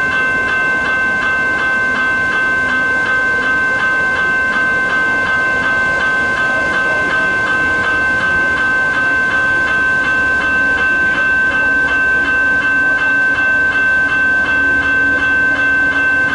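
General Signals E-Bell electronic level-crossing bells ringing continuously in fast, even strokes, a steady high-pitched ding that warns of an approaching train while the boom gates are down. A low hum joins in about two-thirds of the way through.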